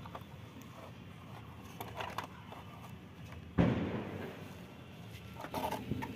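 A plastic toy auto-rickshaw being pushed into a toy truck's cargo bed: a few light clicks, then one loud sudden knock a little over halfway through as it bumps into place, and a few small knocks near the end.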